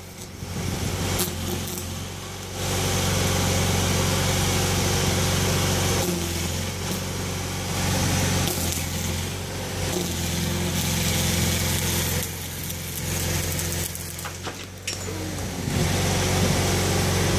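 Arc welding on a steel fire-escape bracket: the arc's crackling hiss comes in stretches of a few seconds with short pauses between welds. Under it runs a steady low hum.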